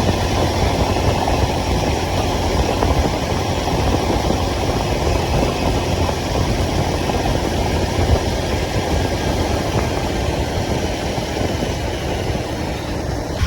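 Motorcycle engine running steadily at low revs, with no revving.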